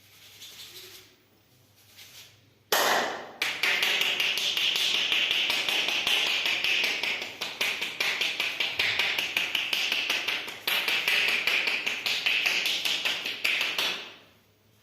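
Rapid, continuous run of percussive massage strikes: the masseur's hands slapping and chopping on the body in quick succession. It starts sharply about three seconds in and fades out near the end.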